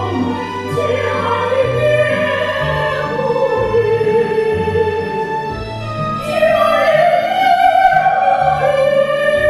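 Two women singing a serenade as a duet in classical, operatic style with wide vibrato, over an instrumental accompaniment with a stepping bass line. The voices swell into long held notes about two-thirds of the way through.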